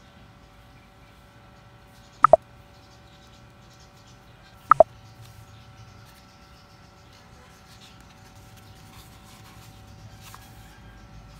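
Paper sticker book being handled, with pages turning softly. Twice, about two and a half seconds apart, there is a short, loud double chirp.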